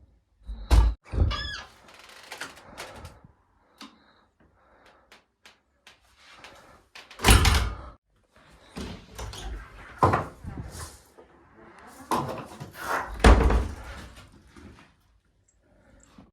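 Doors fitted with overhead door closers being opened and swinging shut, with several heavy thuds as they close and latch and a brief squeak a little after the start.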